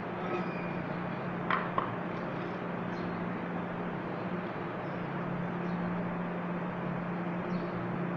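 Steady low hum of workshop background noise, with two sharp clicks about a second and a half in as the metal transmission case is handled.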